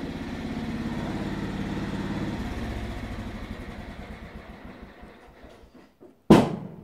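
Petrol lawnmower engine running with a steady pulse, then winding down and dying away from about two and a half seconds in. Near the end a single sharp, loud bang as the engine backfires.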